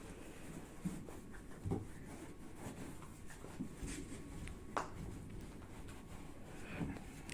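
Scattered light knocks and clicks with faint rustling, from hands handling and fitting sofa parts; the sharpest click comes near the middle.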